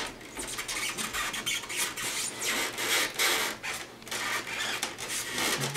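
Hands rubbing and scraping against a styrofoam packing insert, in irregular scuffing strokes, while working printer parts out of the foam.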